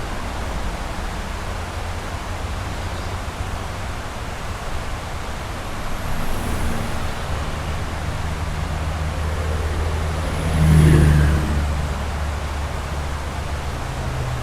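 Steady rush of the swollen creek under a highway bridge, with trucks running across the deck overhead. A low rumble builds from about six seconds in and swells as a vehicle passes at about eleven seconds. The sound reverberates off the concrete walls under the bridge.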